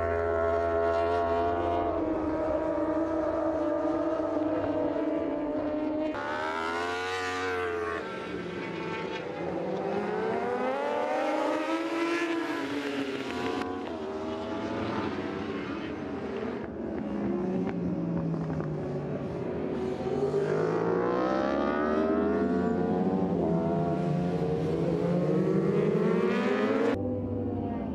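Superbike racing engines at high revs, the pitch rising and falling again and again as the riders brake, shift gears and accelerate. At times several bikes are heard at once as a pack goes by.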